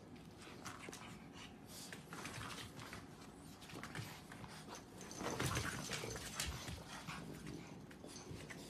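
A pug and a black-and-white bulldog-type dog tugging a soft plush toy between them, with irregular dog noises and movement sounds, loudest a little past halfway.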